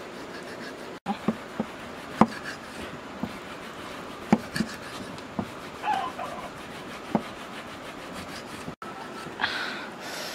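A broad knife blade scraping the scales off a large fish: a string of short, sharp scrapes and ticks at an uneven pace, a few every second or two, over a steady hiss. The sound drops out for an instant twice.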